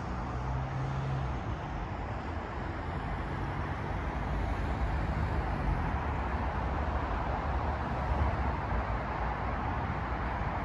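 Steady hum of distant road traffic.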